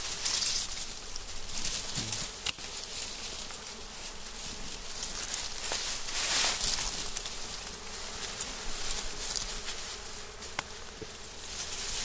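Wild honeybees buzzing in numbers as a steady hum, with a few sharp clicks.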